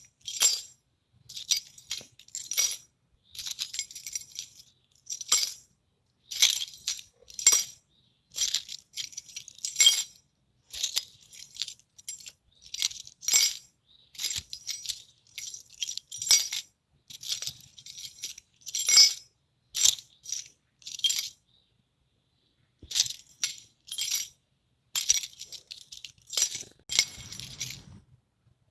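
A bunch of metal keys jingling in many short, separate clinks and jangles, each dying away quickly, with brief silences between.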